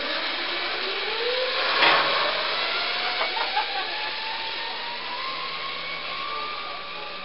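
Zipline trolley running down the steel cable after launch, its pulley whine rising steadily in pitch as it picks up speed, over a hissing rush of cable noise. A brief louder rush of noise comes about two seconds in.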